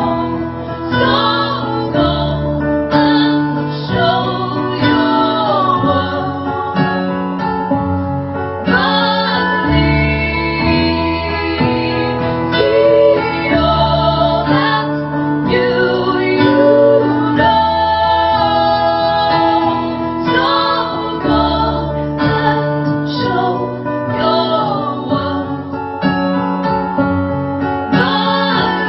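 Live song: a woman singing over strummed acoustic guitar.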